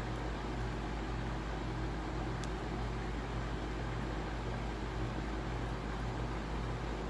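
Steady low hum and hiss of background noise, even throughout, with a single faint crackle from the burning kindling about two and a half seconds in.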